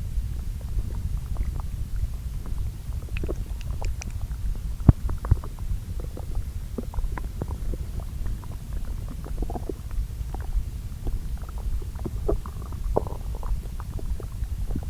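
Human bowel sounds from the lower intestine, two close-up recordings layered together: a steady low rumble with many small scattered gurgles and pops, and a couple of sharper clicks about five seconds in. The intestines are churning the remains of earlier meals in a fairly quiet spell of digestion.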